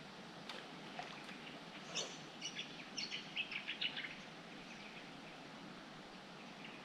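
Birds chirping: a quick run of short, high chirps about two to four seconds in over a faint steady background hiss.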